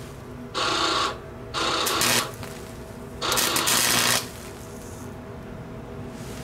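Wire-feed (MIG-type) welder arc crackling in three short welds, each lasting half a second to a second, the longest near the middle, as thin metal rods are welded together.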